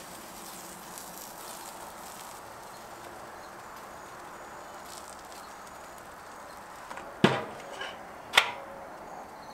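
Metal tongs clacking against a barbecue grill: two sharp clacks about a second apart near the end, over a faint steady outdoor background.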